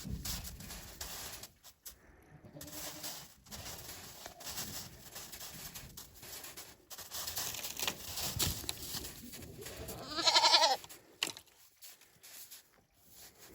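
A goat bleats once, a short wavering call lasting under a second, about ten seconds in, over scattered rustling noises.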